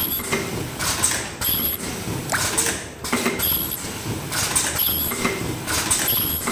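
Automatic ultrasonic mask ear-loop welding machine running, its cycle repeating roughly once a second. Each cycle brings air hisses and clacks from its pneumatic cylinders, along with short high-pitched tones.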